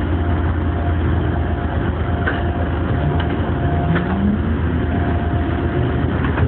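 Electric train standing at a platform with a steady low hum and a steady tone from its equipment, a few faint clicks, then from about halfway through the traction motors start to whine, rising steadily in pitch as it pulls away.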